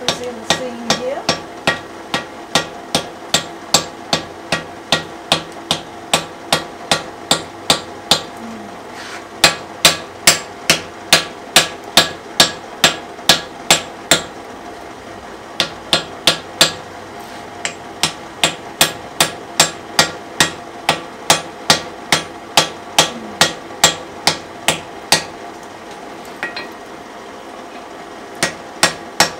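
Hand hammer forging a glowing wrought-iron hammer head held in tongs on the anvil: about two blows a second in runs broken by short pauses, with the anvil ringing under each blow.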